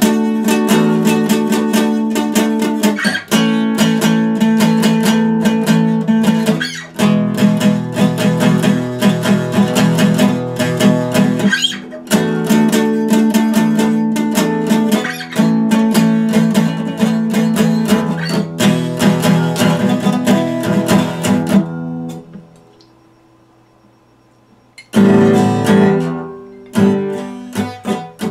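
Acoustic guitar strummed in quick, dense strokes through changing chords. The playing dies away to near quiet about 22 seconds in and starts again about three seconds later.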